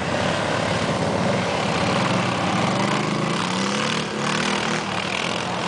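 ATV engine running, its pitch rising and wavering up and down from about two seconds in before settling.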